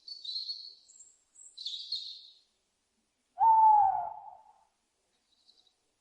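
Owl calls: two short, high, raspy calls, then a little over three seconds in a louder, lower call about a second long that falls slightly in pitch.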